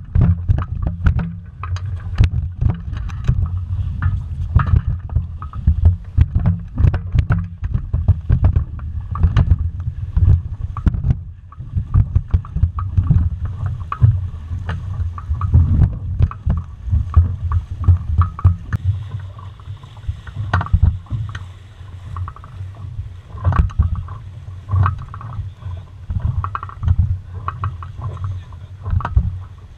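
A small sailing dinghy under way in choppy water: water slapping and splashing against the hull in irregular bursts, with wind rumbling on the microphone. It is busiest in the first half and eases off after about two-thirds of the way through.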